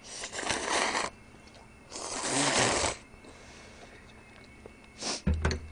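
Slurping noodles in broth, two long slurps of about a second each. Near the end come a few sharp clicks and a low knock.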